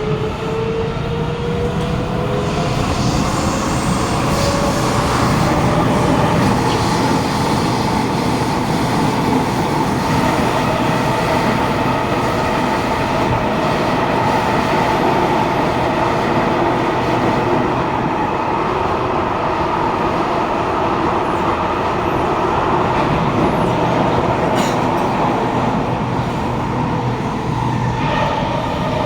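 Kawasaki Nippon Sharyo C751B metro train heard from inside a carriage running through a tunnel. Its traction motor whine rises in pitch over the first few seconds as the train gathers speed. After that comes a steady running noise of wheels on rail with a constant motor tone, and a new, lower tone comes in near the end.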